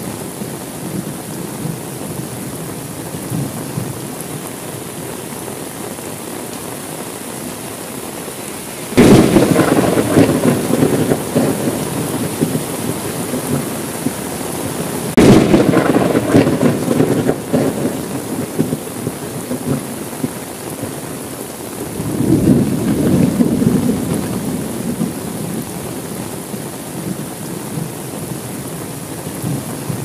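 Steady rain with thunder: a sharp clap about nine seconds in and another about fifteen seconds in, each rumbling on for a few seconds, then a softer rumble swelling a little past twenty seconds.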